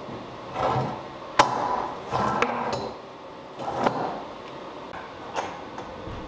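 Oak boards being handled and set down on a workbench across bar clamps: a series of wooden knocks and short scuffs of wood sliding, the sharpest knock about a second and a half in.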